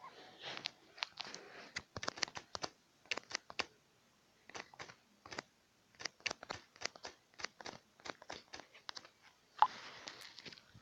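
Fingertips tapping on a smartphone touchscreen while typing a message: irregular quick taps, several a second with short pauses, one louder tap near the end.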